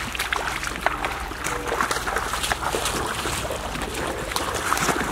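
Bare feet splashing and sloshing through shallow, muddy floodwater, a dense run of small splashes.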